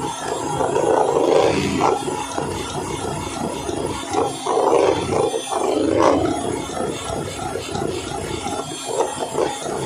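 Electric hand mixer running, its beaters whipping chilled cream in a stainless steel bowl. The cream has already swelled in volume. The churning noise is steady but uneven, swelling and dipping in loudness.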